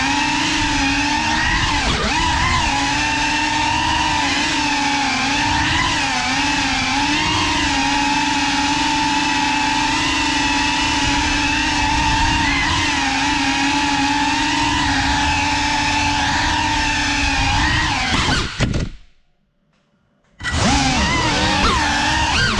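Ducted propellers and brushless motors of a GEPRC Cinelog35 FPV cinewhoop drone whining in flight, the pitch wavering up and down with the throttle. About eighteen seconds in the sound cuts off suddenly to near silence for about two seconds, then the whine picks up again.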